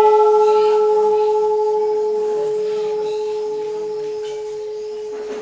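A temple bell struck once just before, ringing on in one steady tone with a slight pulsing, slowly fading.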